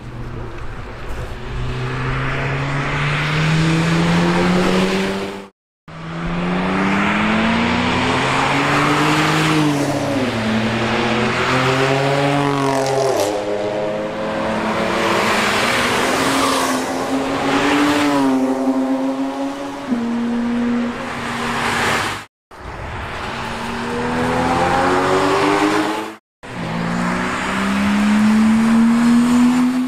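Road cars' engines accelerating out of a corner, one after another, each note climbing in pitch with a few drops at gear changes. The sound is split into several short segments by brief silent cuts.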